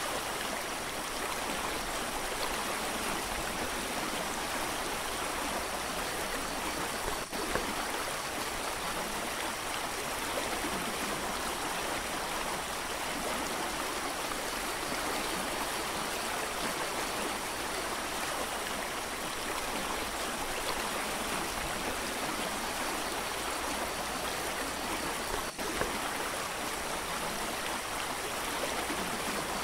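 Mountain creek rushing steadily over rocks, a continuous even hiss of water, broken by two very brief dropouts, about a quarter of the way in and near the end.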